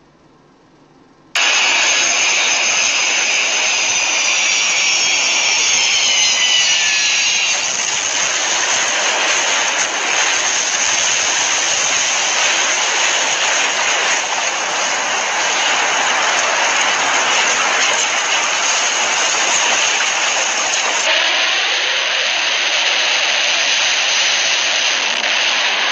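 Loud jet aircraft engine noise, a steady rushing roar that cuts in abruptly about a second and a half in. For the first several seconds a high whine falls in pitch, and the roar changes character near the end.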